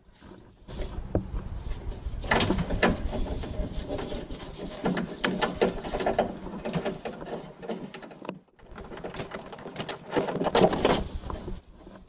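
Lock rods and cables inside a Toyota Yaris door rattling and clicking against the door's sheet metal as they are unhooked and pulled out by hand, with a short pause about eight seconds in.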